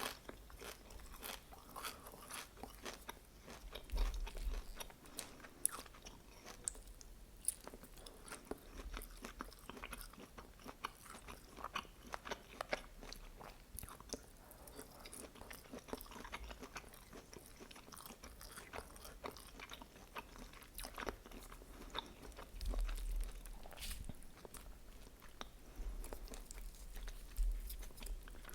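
Close-miked chewing and biting while eating chicken lyula kebab with vegetables: a steady, irregular run of small sharp mouth clicks and crunches, with a few low thumps.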